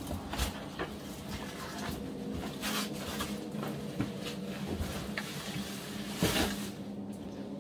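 Scuffs, knocks and scrapes of people and their gear against rock as they crawl through a tight cave passage. The knocks are irregular, the loudest a little past six seconds in, over a steady low hum.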